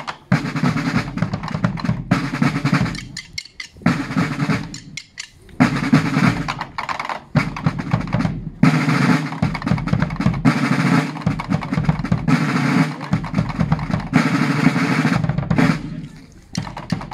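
A drum corps of field snare drums and a bass drum playing together in short phrases separated by brief pauses, dying away shortly before the end.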